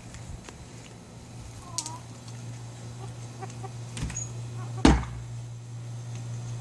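Domestic chickens clucking softly, with a single sharp knock just before five seconds in, the loudest sound.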